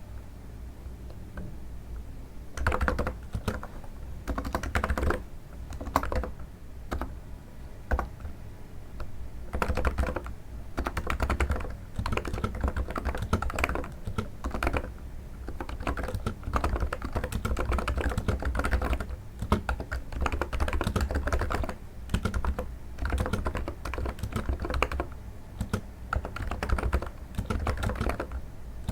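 Typing on a NiZ electro-capacitive keyboard: steady runs of soft keystrokes in uneven bursts with short pauses, a sound likened to stepping on snow.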